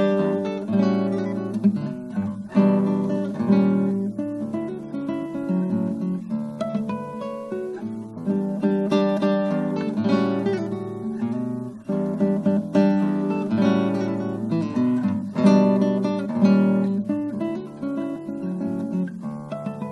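Acoustic guitar music, plucked and strummed, playing over the closing credits.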